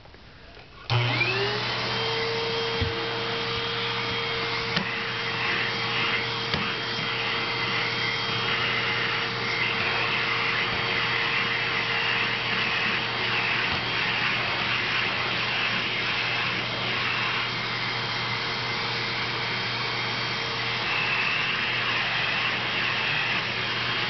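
Upright vacuum cleaner switched on about a second in, its motor spinning up with a short rising whine and then running steadily while the hose wand is worked over the floor and rug.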